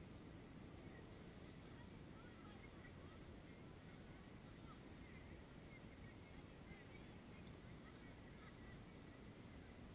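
Near silence: a faint steady low rumble, with a few faint short high calls from far off.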